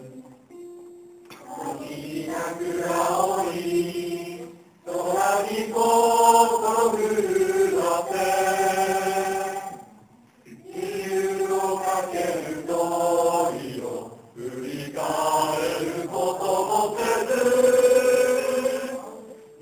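A mixed group of young men's and women's voices singing together in unison from lyric sheets, in four long phrases separated by short pauses.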